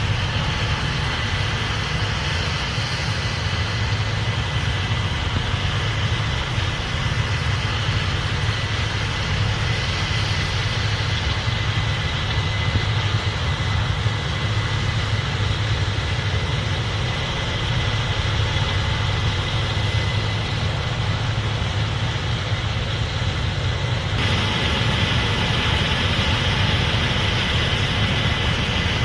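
Case IH 8250 Axial-Flow combine running steadily while harvesting corn, a deep, continuous machine sound. Near the end it turns abruptly brighter, with more high whine and hiss on top.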